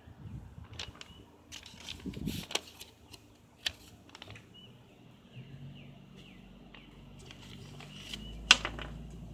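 Handling noise from a phone and a sheet of paper: scattered clicks and rustles, with one sharp click near the end.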